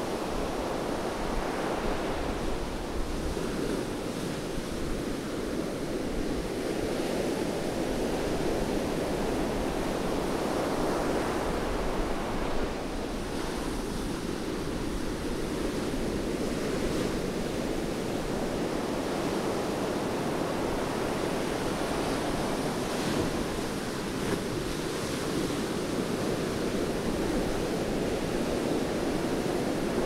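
Rough surf breaking on a sandy beach: a continuous wash of waves that swells and eases every several seconds as each wave breaks and runs up the sand.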